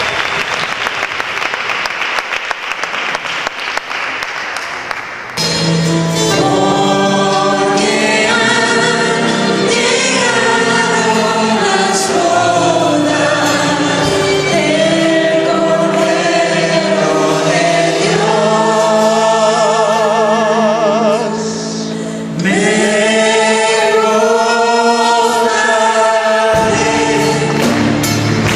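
Audience applause for about five seconds, then a live worship band starts abruptly: a group of singers over guitars and drums performing a Christian worship song.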